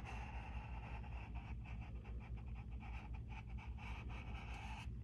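Paintbrush strokes scratching across a canvas in quick repeated dabs, over a steady background hum that drops away just before the end.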